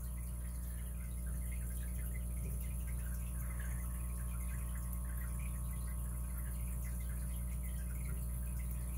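Steady electrical mains hum, with faint light ticks scattered through it.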